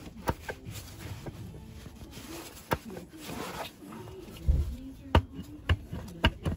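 A few sharp metallic clicks and knocks, spaced a second or more apart, with a dull thump about halfway through: a water pump being worked loose from the engine block by hand and tool once its bolts are out.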